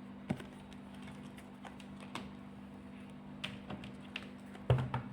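Tarot cards being handled on a table: scattered light clicks and taps at uneven intervals, with a louder knock near the end.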